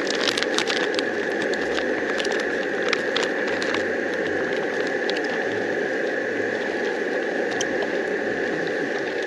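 Camping stove burner running with a steady hiss under a large pot of boiling broth, with bubbling and scattered crackles and clicks from the simmering pot as it is stirred.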